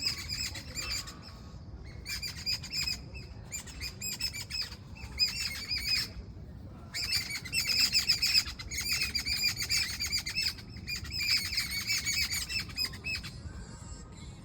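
Birds chirping in fast, dense runs of short high notes, broken by a few brief pauses, over a faint low background hum.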